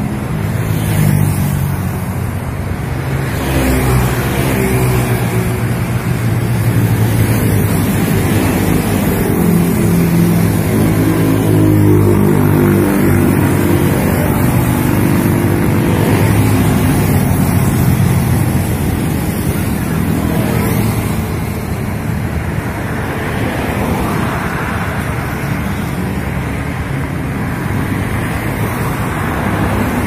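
Road traffic passing: cars and motorcycles with a continuous engine drone and tyre rumble, loudest in the middle stretch and easing off after about twenty seconds.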